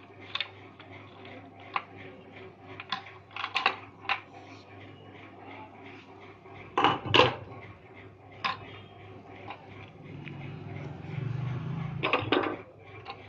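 Scattered clicks, knocks and clatter of sheet metal and plastic gears being handled as the gear cover plate comes off a Samsung SCX-3201 laser printer's side frame. The loudest knocks come as a pair about seven seconds in and again near the end.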